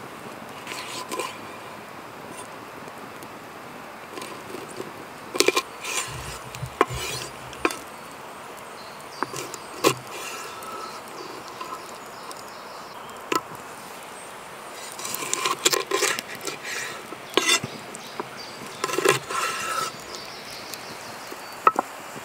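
Steady outdoor background hiss with scattered clicks, knocks and clatters of objects being handled, bunched into short flurries, and a few dull thumps a quarter of the way in.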